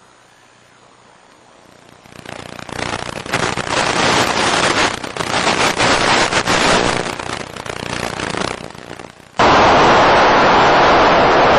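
Crackling, popping static from an FPV plane's analog video-and-audio radio link breaking up, swelling in about two seconds in and sputtering irregularly. Just after nine seconds it cuts abruptly to a loud, steady rushing noise.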